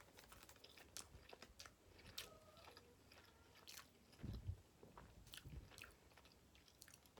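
Faint close-up chewing of a sandwich: scattered soft mouth clicks and smacks as a person eats.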